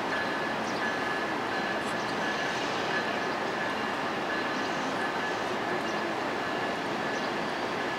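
VIA Rail passenger train of LRC cars, hauled by a P42 Genesis diesel locomotive, rolling slowly into the station: a steady rolling noise with a thin high wheel squeal that comes and goes.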